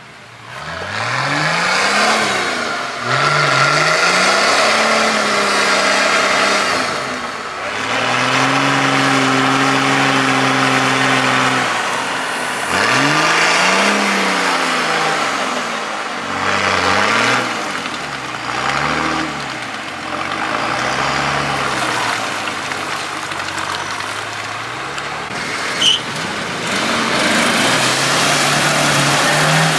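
Off-road mud buggy's engine revved hard again and again while its wheels spin in thick clay, the pitch climbing and falling in repeated surges and held high for a few seconds at a time.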